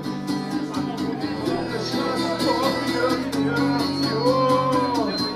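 Live acoustic band music: a strummed acoustic guitar keeps a steady rhythm under sustained chords, with a melody line holding a long, bending note near the end.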